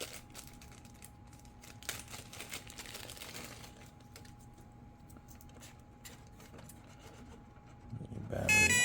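Faint clicks and rustling as the flight battery lead is plugged into the DEERC F35 RC jet. Near the end a loud electronic beep starts: the plane's power-up tones once the battery is connected.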